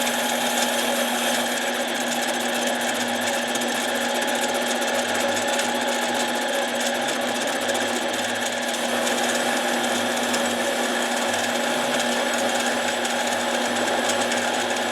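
Harbor Freight mini lathe running steadily at constant speed while an impact wrench motor end plate is polished on it, a continuous motor whine with a hiss over it.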